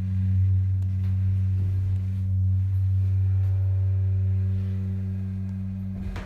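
Hydraulic lift's pump motor running with a steady, deep electric hum while the car travels, fading slightly and cutting off near the end, just before a clunk.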